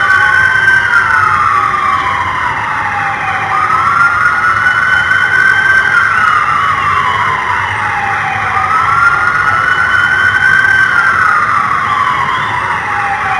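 Police car siren wailing: each cycle rises quickly, holds high, then falls slowly, repeating about every five seconds over a steady high tone.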